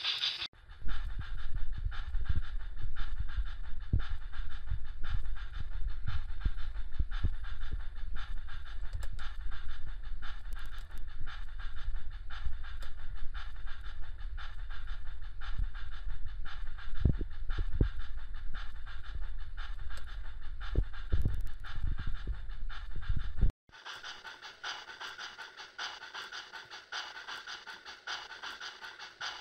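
HO-scale model of the Union Pacific 4-12-2 steam locomotive running in place on a roller stand, giving a fast, even chuffing over a low mechanical rumble with a few knocks. About 23 seconds in the sound suddenly drops to a quieter, lighter chuffing.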